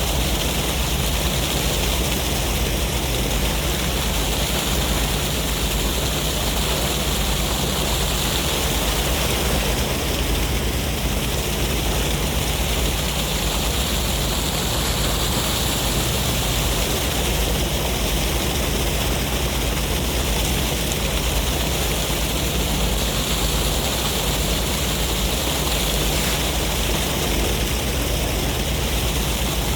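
Ocean waves washing ashore in a sea breeze: a steady rush with gentle swells every several seconds.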